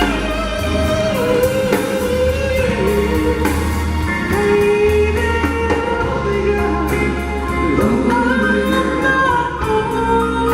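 Band music from a slow doo-wop love song: a gliding melody line over guitar, bass and a steady drum-kit beat.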